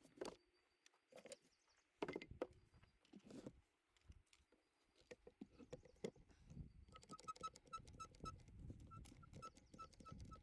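Faint knocks and clunks of clamps and the tire being worked onto the rim, then a quick, even series of short high chirping clicks near the end over a low handling rumble.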